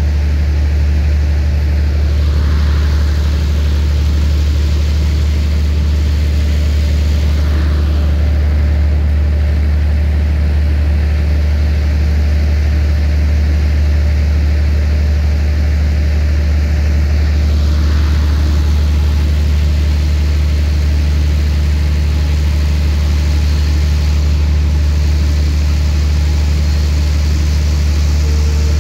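Standing diesel express train idling at the platform: a steady, loud low engine hum that does not change.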